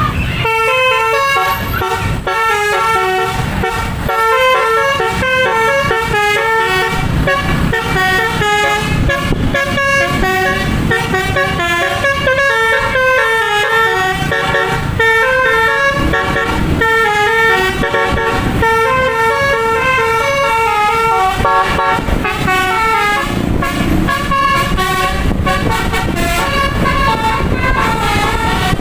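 Indonesian bus 'telolet' musical horn playing a long melody of short stepped notes, changing pitch several times a second, over a low rumble.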